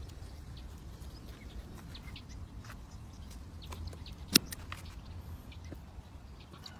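Steel bonsai shears cutting twigs on a Thai ebony (ta-ko) bonsai: one sharp snip a little past halfway, among light clicks and rustles of the blades and branches being handled.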